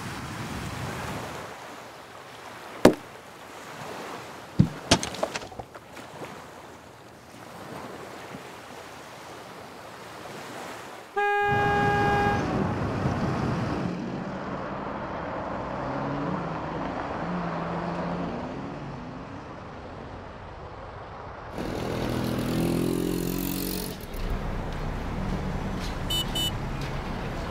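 Street ambience with traffic noise and a vehicle horn giving one short toot about eleven seconds in. A few sharp clicks sound earlier, and busier street noise follows the toot.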